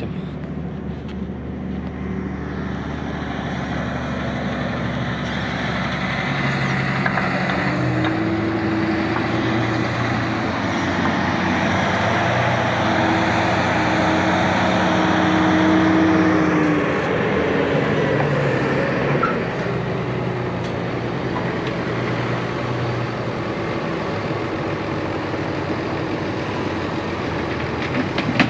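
Tractor engines running steadily with a Usarya stone picker working behind them. The engine note steps up about a third of the way in, holds, and settles back lower about halfway through.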